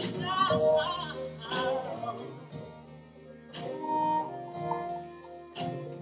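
Live band playing an instrumental passage between sung lines, with drum and percussion hits keeping the beat and a wavering melody line over it in the first couple of seconds.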